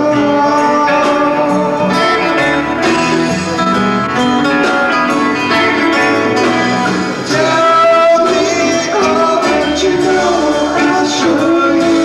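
Live band playing a rock song, with strummed and picked guitars and a voice singing.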